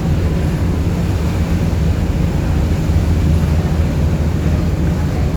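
Steady low drone of a passenger-and-vehicle ferry's engines running underway.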